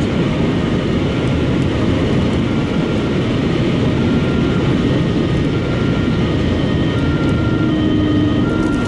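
Steady noise inside a car's cabin driving at speed on a motorway: tyre and road noise with wind and engine, an even rush with no changes.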